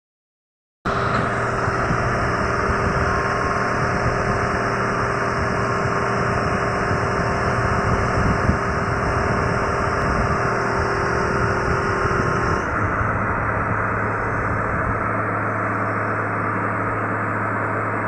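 Hitachi crawler excavator's diesel engine running steadily, starting about a second in. A steady hum within the engine noise stops about two-thirds of the way through, and the sound's character shifts.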